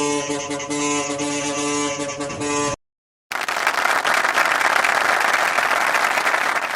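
A bus horn holds one steady, many-toned blast and cuts off suddenly about three seconds in. After a brief silence, a loud, even rushing noise with no tone fills the rest.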